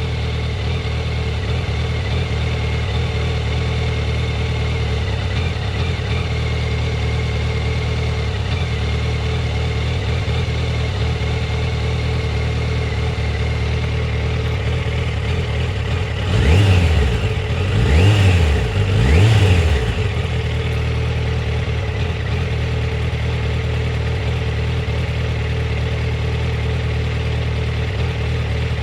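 Yamaha FZ1's inline-four engine idling warm with a rough, uneven idle, blipped three times in quick succession about halfway through, each rev rising and dropping back to idle. The rough warm idle and low-rpm stutter point to a fault the owner has not found; the ignition coils test in spec.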